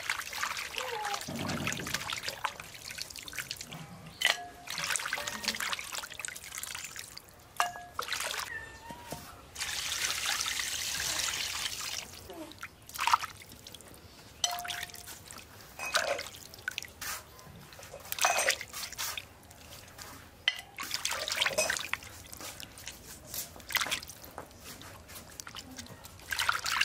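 Water trickling and splashing in uneven bursts, with a steady pour lasting a couple of seconds in the middle.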